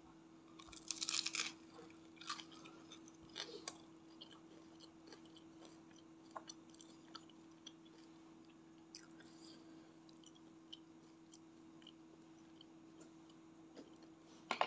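Close-miked biting and chewing of crispy battered fried snacks (Indonesian gorengan). A loud crunching bite comes about a second in and a few more crunches follow over the next few seconds. Softer, sparse chewing clicks come after, another crunch near the end, all over a faint steady hum.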